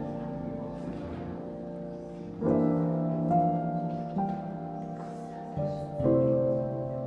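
Gentle instrumental background music: sustained piano chords, a new chord struck about two and a half seconds in and another near the end, each slowly fading.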